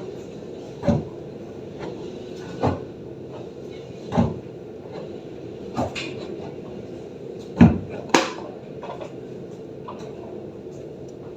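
Light rain falling steadily, with sharp knocks of heavy drips landing on a hard surface every second or two; the loudest two come close together about eight seconds in.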